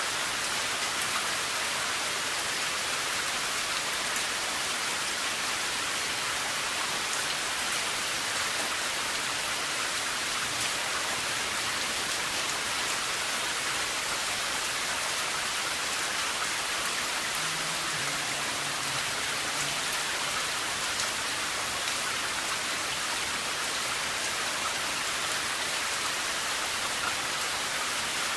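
Steady rain: an even hiss with scattered faint ticks of drops.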